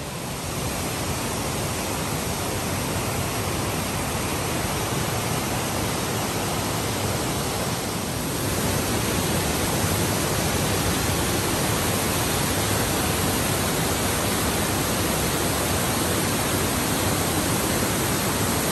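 Dingmans Falls, a 130-foot waterfall, rushing steadily; the rush of water gets louder about eight seconds in.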